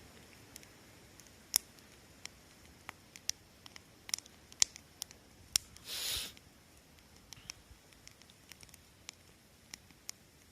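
Wood fire crackling, with irregular sharp pops and snaps and a brief hiss about six seconds in.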